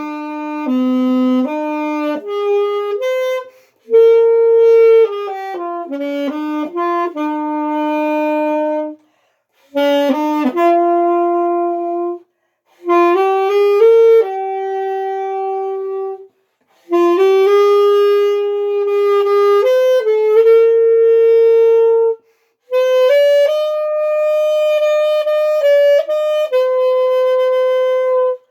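A solo saxophone playing a slow melody without accompaniment, in phrases of held and slurred notes separated by short pauses for breath.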